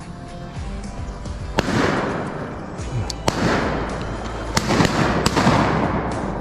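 Shotgun blasts, about five or six in a quick volley, each followed by a long rolling echo, over background music.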